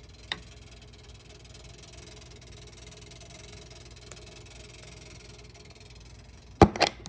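Steady hum with a faint high whine from a 1941 Keeney Air Raider arcade gun game switched on, its projector unit running. A light knock about a third of a second in and two louder sharp knocks near the end.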